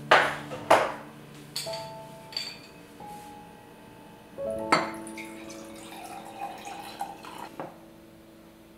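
Glass clinks and clacks, the loudest two near the start, then water poured from a swing-top glass bottle over a lemon ice cube in a glass for a couple of seconds in the second half, ending with a clink. Soft piano music plays underneath.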